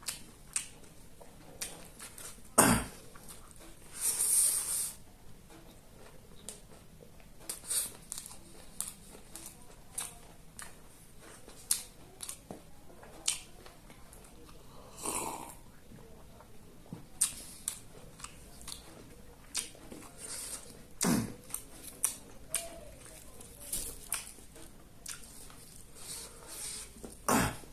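Close-miked eating: steady chewing with wet smacks and crisp clicks, and a few louder, sharper bites scattered through.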